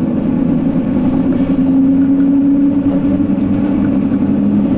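Steady low drone of a car engine running, with a held hum that rises slightly in pitch near the middle and settles again.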